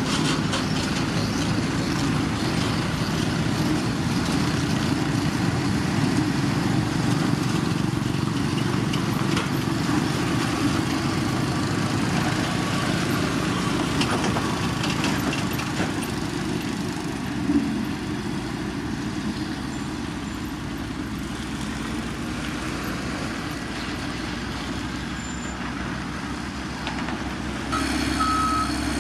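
Diesel engines of heavy road machinery, a motor grader and road roller working crushed gravel, running steadily under load. Near the end a reversing alarm starts beeping.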